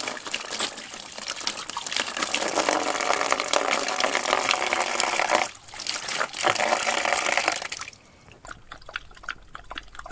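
Water running from the spigot of a plastic water jug and splashing over hands being washed, with a brief break about five and a half seconds in. The stream stops about eight seconds in, followed by a dog lapping water from a plastic tub.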